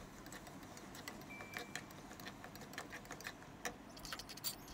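Sliced onions and ginger-garlic paste frying in hot oil in a pan, crackling with many small irregular pops.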